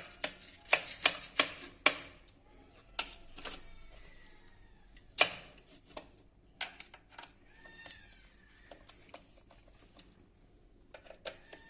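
Plastic electrical extension board being fitted together and tightened by hand: a run of sharp clicks and taps, thick in the first two seconds, then scattered, with a few faint squeaks.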